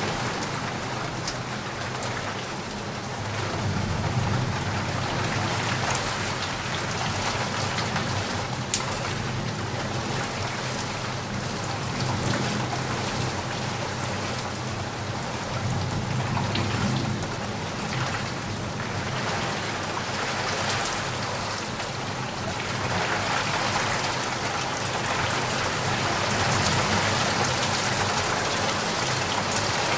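Steady rain falling, with scattered individual drops ticking. A low thunder rumble swells in under it for the first half.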